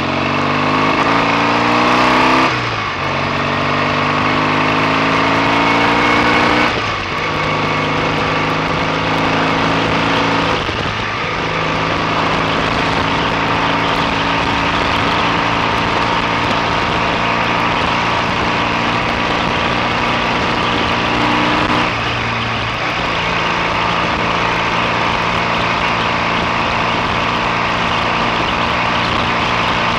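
BSA A65 650 cc parallel-twin motorcycle engine running under way, its pitch climbing over the first couple of seconds, then holding steady with a few brief drops in revs.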